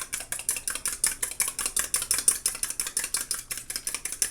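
A fork beating raw eggs in a bowl, clicking against the bowl in a rapid, steady rhythm of about eight strokes a second.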